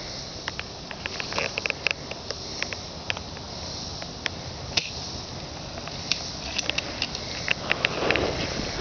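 Irregular crackling clicks over a steady hiss, a little denser near the end: someone moving through dry leaves and brush.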